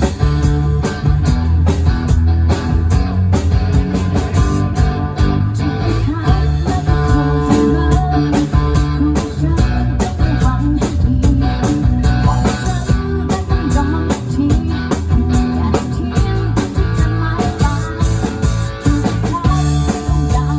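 Live band playing rock-style music with guitar, bass and drums through a PA during a sound check.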